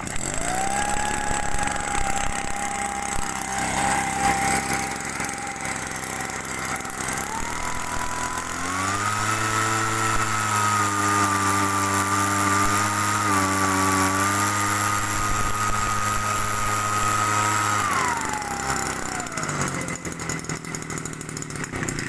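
Kioritz DMD3101 backpack blower/fertilizer spreader's 31cc two-stroke engine idling just after starting. About eight seconds in it is revved up to full throttle and held there, blowing steadily through the tube, and about eighteen seconds in it is throttled back down to idle.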